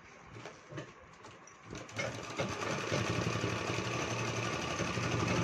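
Sewing machine starting up about two seconds in and running steadily, stitching a straight seam through folded fabric. A few faint clicks come before it starts.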